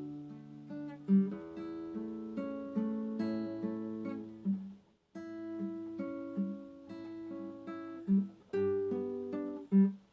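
Acoustic guitar (violão) playing slow, calm plucked notes that ring over one another, with a few louder low notes and a brief break about halfway through.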